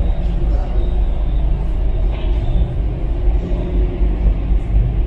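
Steady low rumble of a large ferry's engines heard inside the ship.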